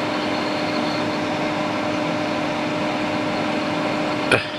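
Hot air rework station blowing steadily, with a steady hum, while heating a burnt chip whose solder will not melt. A single short click near the end.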